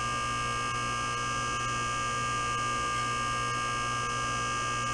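Electric hydraulic pump motor of a Wildfire 9,000 lb four-post car lift running steadily on its first run, an even hum with a steady whine above it. The pump is filling a cylinder that is still full of air, drawing the fluid level in the reservoir down.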